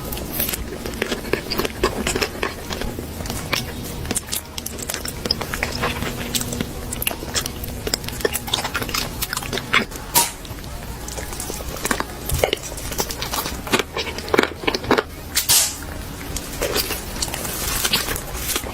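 A person biting and chewing food, with irregular sharp crunches and clicks.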